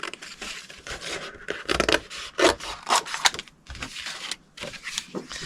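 Irregular rubbing, scraping and tearing sounds of hands working with cardstock, a metal die and low-tack tape on a craft table, with a few sharp taps.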